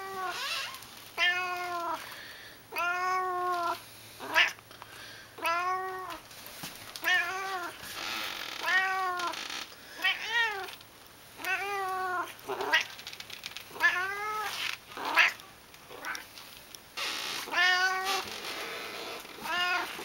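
Domestic cat meowing over and over, a dozen or so meows, one every second or two, each rising and then falling in pitch. The cat is begging for treats held just out of reach.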